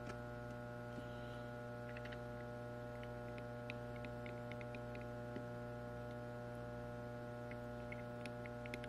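Steady electrical mains hum, with faint small clicks from about two seconds in as steel tweezers and a soldering iron's knife tip touch 0402 resistors and the circuit board.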